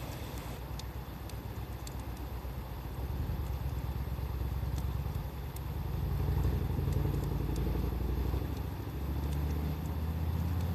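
Campfire crackling with scattered small pops, under a loud low engine-like rumble that grows louder about six seconds in.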